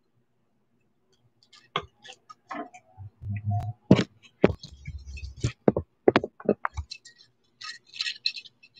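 Handling noise from a hand and large metal filigree earrings right up against the webcam's microphone: irregular sharp clicks and ticks starting about a second and a half in, a few dull bumps between about three and five seconds in, and a quick rattle of small ticks near the end.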